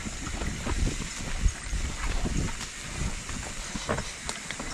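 Mountain bike riding on a dirt trail: rumbling wind buffeting the microphone, with irregular clicks and rattles from the bike and the trail surface.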